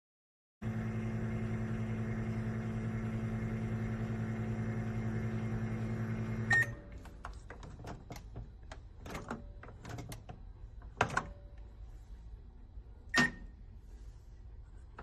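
BLACK+DECKER EM720CB7 700-watt microwave oven running with a steady hum. It stops about six and a half seconds in with a short beep. Scattered clicks and taps follow, with another short beep near the end.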